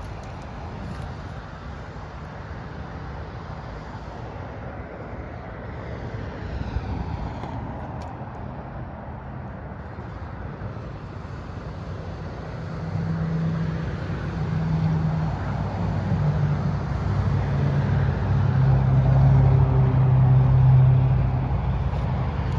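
A motor vehicle's engine running, a steady low hum that grows louder from about halfway through and is loudest near the end.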